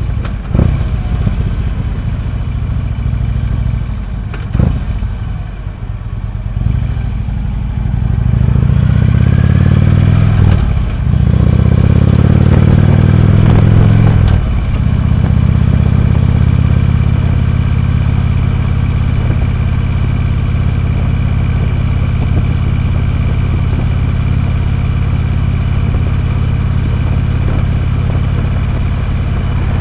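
Harley-Davidson V-twin engine under way, heard from the rider's seat. About a quarter of the way in it gets louder and speeds up, with two brief breaks, then settles into a steady cruise.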